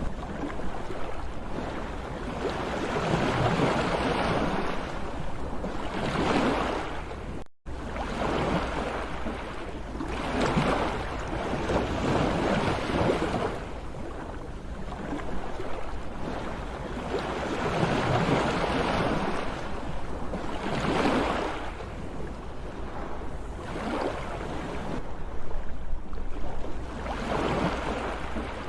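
Sea waves surging and receding in slow, repeated swells every few seconds. There is a brief dropout about seven and a half seconds in.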